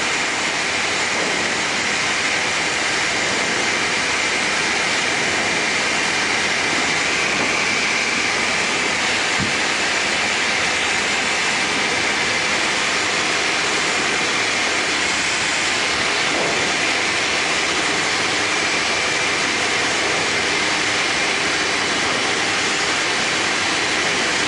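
Steady drone of engine and propeller noise inside the cabin of a Tecnam P92 Eaglet light aircraft in level cruise flight, with an even level throughout and a strong hiss in the upper range.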